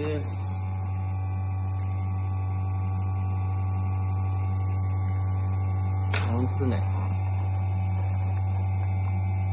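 Electric chainsaw-chain sharpener's motor running with a steady low hum, the grinding wheel spinning between teeth.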